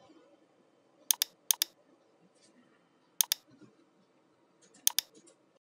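Computer mouse button clicking: four quick pairs of sharp clicks, a second or more apart, over faint room noise.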